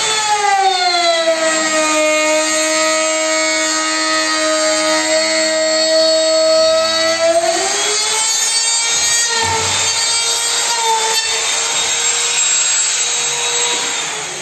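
Electric power tool motor cutting the latch strike recess into a composite door frame. Its pitch sags and holds low under load for about seven seconds, then rises again and runs steady before winding down near the end.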